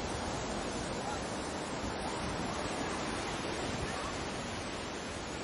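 Sea waves washing in a steady, unbroken rush, with wind.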